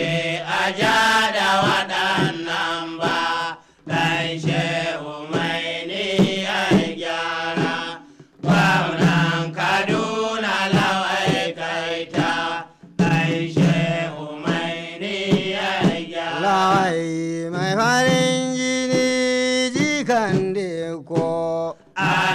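Hausa praise song: a singer chanting a melodic line over steady drum strikes, holding one long note about two thirds of the way through.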